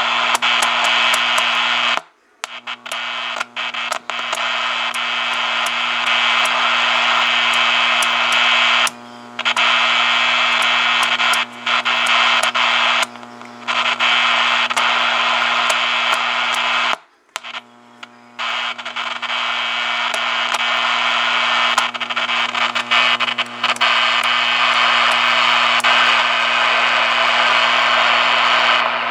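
Atlas 23-channel AM CB base station receiver playing loud static with crackling clicks over a steady low hum. The noise cuts out completely for a moment twice, about 2 seconds in and again about 17 seconds in.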